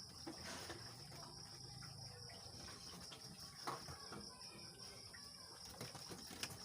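Insects, crickets by the sound, chirring in a steady high trill, with a few faint clicks over it.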